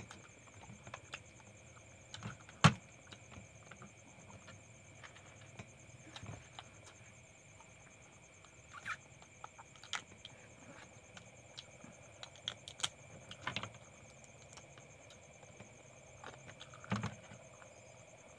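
Cooked small river crabs (talangka) being cracked apart by hand and eaten: scattered sharp shell cracks and crunches with chewing between them, the loudest crack about three seconds in.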